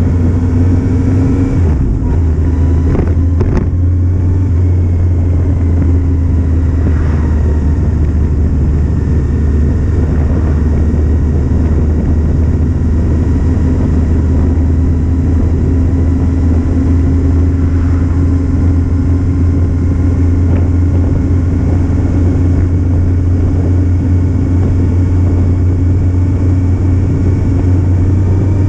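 Kawasaki Z750 motorcycle's inline-four engine running under way at a fairly steady speed, its note holding nearly constant with only slight rises and falls.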